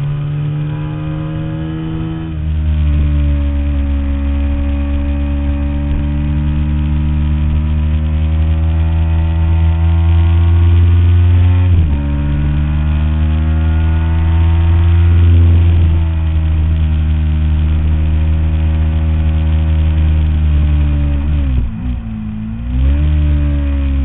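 Ducati 749S L-twin through a full Termignoni exhaust, running hard under way. Its note climbs steadily, drops sharply about halfway through, then climbs and falls again. Near the end it dips briefly and picks back up.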